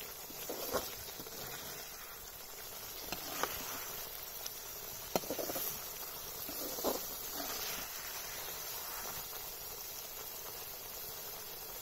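A metal ladle scraping and knocking against an iron kadhai every second or two as thick gravy is stirred and spooned. Behind it runs a steady high chorus of night insects such as crickets.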